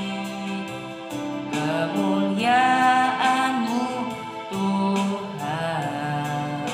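A boy singing a worship song into a microphone, his held notes wavering with vibrato, over an instrumental backing track with a light steady beat.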